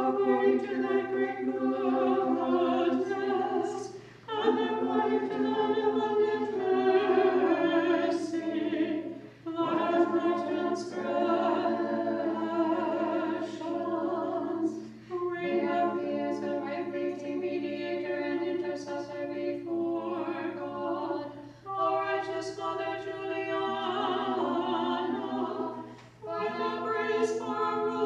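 A small group of nuns singing Orthodox liturgical chant a cappella, in sustained phrases of about five seconds with brief pauses for breath between them.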